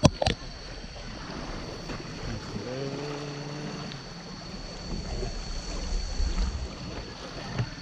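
Wind rumbling on the microphone over water washing around a river raft as it drifts, with a thin steady high tone throughout. Two clicks right at the start, and a short low hum about three seconds in.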